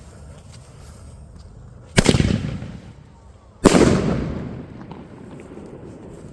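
Two loud firework bangs about a second and a half apart, each echoing away over about a second.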